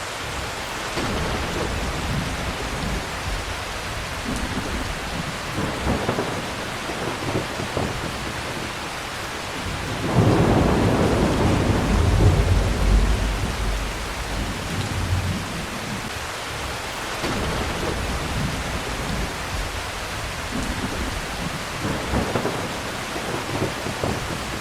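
Heavy rain falling steadily, with thunder: a loud rolling peal of thunder about ten seconds in that rumbles on for several seconds, and fainter rumbles at other moments.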